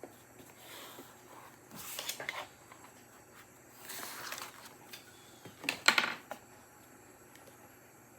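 A few short scratchy strokes of a pen drawing on paper, about two seconds apart, the loudest near the end.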